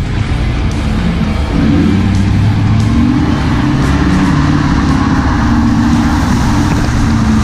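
Ford F-350 pickup's engine running steadily as the truck drives along a muddy track, louder from about a second and a half in, with background music mixed in.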